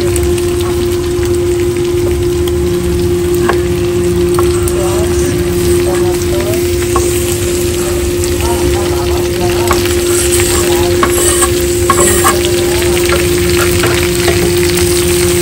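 Meat frying in hot oil in a pan, sizzling as it is stirred, with scattered clicks and scrapes of the spoon against the pan and a steady hum underneath.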